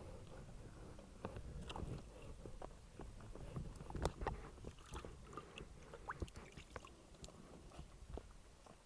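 Scattered small clicks, scrapes and knocks of things being handled close to the microphone, the loudest knock about four seconds in, over a low rumble of wind on an earphone microphone.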